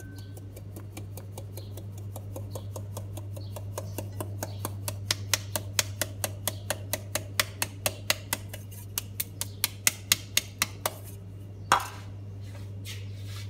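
Metal flour sieve being tapped and shaken over a stainless steel bowl: even metallic ticks, about four a second, louder from about four seconds in and stopping a couple of seconds before the end, then one louder knock as the sieve is set down in the bowl. A steady low hum runs underneath.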